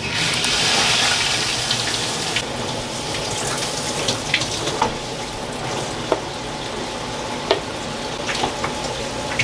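Shower water running: a steady hiss of spray, louder for the first couple of seconds, with scattered small splashes and drips.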